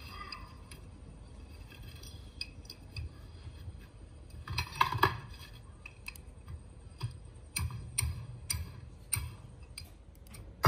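Irregular clicks and light taps of hands working on small metal parts, played back through a loudspeaker, with a louder clatter about five seconds in.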